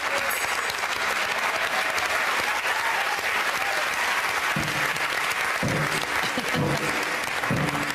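Studio audience applauding steadily. A triangle is struck once just after the start, and from about halfway there are short bursts of music under the clapping.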